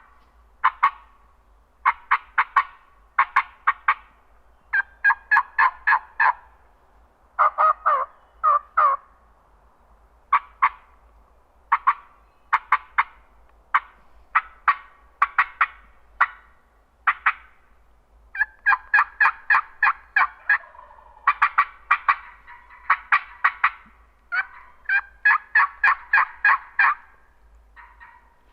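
Turkey yelping: a long run of short series of sharp, evenly spaced notes, about five a second, with short pauses between series. In places the series overlap.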